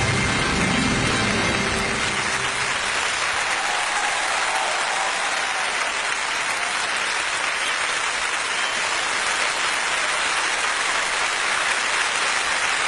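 Music ends in the first couple of seconds and gives way to a theatre audience applauding steadily.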